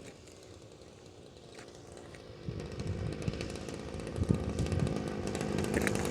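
Single-cylinder two-stroke gasoline engine (DLE 20) of a radio-controlled Cessna Skyline model plane with its propeller, buzzing faintly at first and growing steadily louder from about two and a half seconds in.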